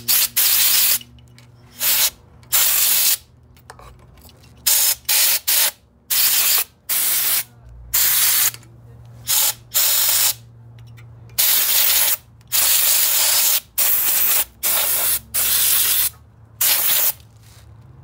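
Compressed-air blow gun blasting dust and debris off a small engine's cylinder head and cooling fins. It comes in a quick series of about seventeen short hissing bursts, the longest about a second.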